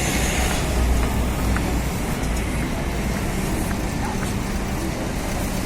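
City street traffic: a steady road-noise rumble of passing cars.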